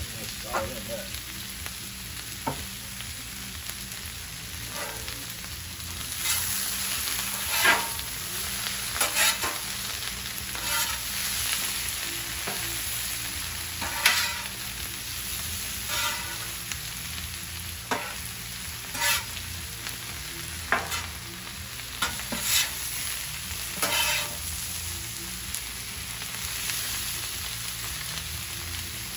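Shredded cabbage sizzling on a Blackstone flat-top griddle. From about six seconds in, metal spatulas scrape across the griddle steel every second or two as the cabbage is turned and tossed.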